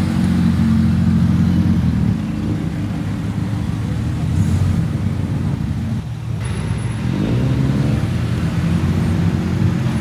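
Car engines and exhausts running as modified cars roll slowly past, with an engine revving up just after seven seconds. The sound changes abruptly about six seconds in.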